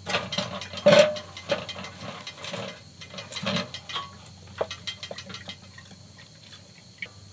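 Small steel wood-burning tent stove being loaded: metal clicks and knocks from its door and body, with dry twigs and leaves rustling as they are packed into the firebox. The loudest knock comes about a second in, and the clicks thin out after about five seconds.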